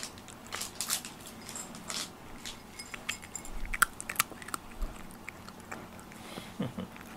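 A cat crunching and chewing dry kibble from a ceramic bowl: irregular sharp crunches a few times a second, loudest about four seconds in.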